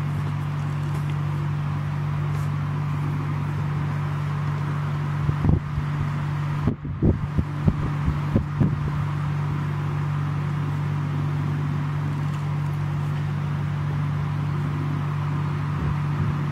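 Tabby cat purring close to the microphone, a steady low continuous drone, with a few knocks and rustles of movement on the towel about halfway through.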